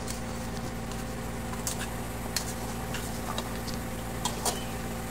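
A plastic ladle clicking and scraping against a metal bowl as sliced eggplant is tipped into a pot of simmering broth. The sharp clicks are scattered and irregular, over a steady hum.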